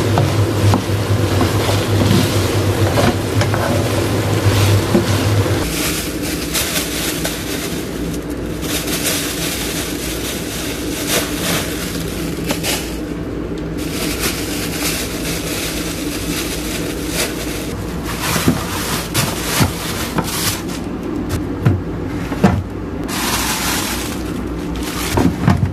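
A wooden spatula stirring tofu in a frying pan over a steady low hum. About six seconds in this changes to plastic grocery bags rustling and crinkling as groceries are handled and put into a fridge, with a few knocks near the end.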